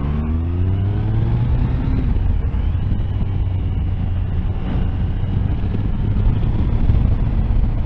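Triumph 1050 Tiger Sport's three-cylinder engine rising in pitch as the bike accelerates over the first couple of seconds, then running steadily at road speed with heavy wind rush over the microphone.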